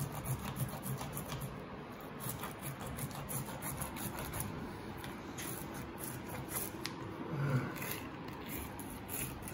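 Blunt butter knife scraping and ticking along a coral trout's backbone and ribs as a fillet is worked free, a busy run of small scrapes and clicks.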